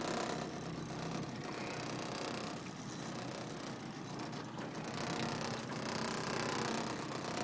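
Boat motor running steadily with an even hum.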